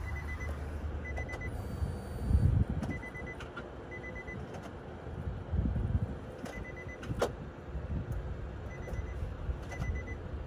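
Short high electronic beeps repeating at intervals, typical of a truck's key-in-ignition or door-ajar chime, over a low rumble with a couple of louder handling thumps and a sharp click about seven seconds in. The electric fuel pump the listener is meant to hear is not plainly audible.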